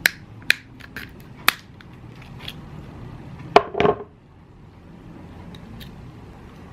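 Small hand-work noises: four sharp clicks or taps about half a second apart, then a louder click followed by a short scraping rattle a little before halfway through.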